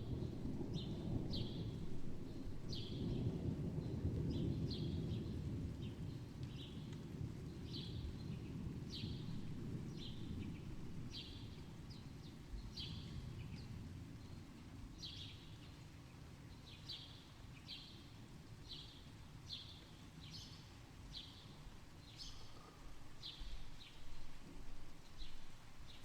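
Rumble of thunder dying away over the first several seconds, under a bird repeating short high chirps about once or twice a second.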